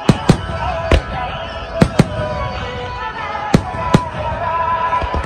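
Aerial firework shells bursting, about eight sharp bangs, some in quick pairs, with music playing under them.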